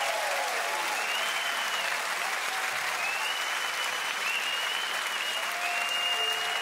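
Concert audience applauding and cheering, with a few high held tones above the clapping.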